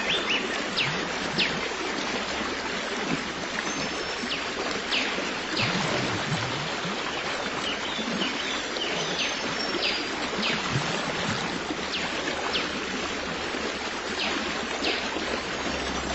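Running water of a stream, a steady rushing hiss, with many short high bird chirps scattered over it.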